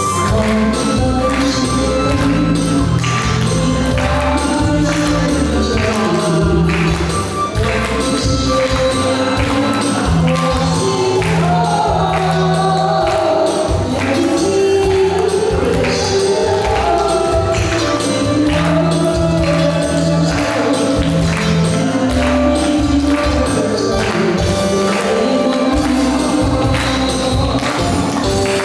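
Music: a song played with a steady beat and a melody line that runs throughout.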